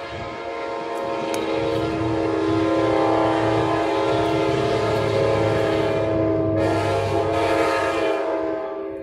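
Horn of an approaching Trinity Railway Express commuter train sounding one long, multi-note chord, growing louder about two seconds in and cutting off near the end.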